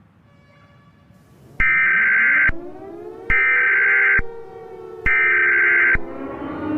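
Emergency Alert System SAME header: three loud bursts of screeching digital data tones, each about a second long with about a second between them, over faint gliding background tones. These encoded bursts announce the start of an EAS alert.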